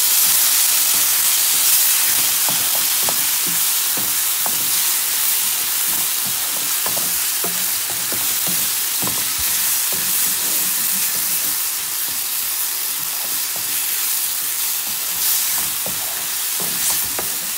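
Couscous with chopped peppers, onion and tomato sizzling in a frying pan on the stove while a wooden spatula stirs and scrapes through it. A steady frying hiss runs under scattered light clicks of the spatula against the pan.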